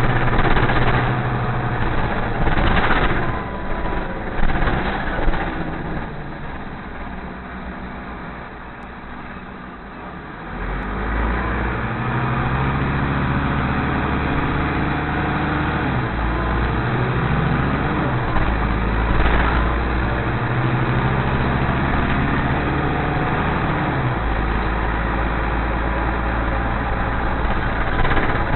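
Nova LFS city bus heard from inside. It stands quietly for a few seconds, then pulls away about ten seconds in, and its engine pitch steps up and down through several gear changes as it gathers speed.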